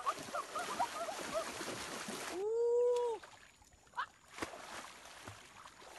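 Splashing as someone runs through shallow river water, with short chirpy cries over it, then one held, arching call about halfway through before the water goes quieter with a couple of sharp clicks.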